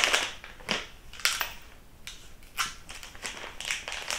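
Shipping packaging being handled: a string of short, irregular crinkles and rustles.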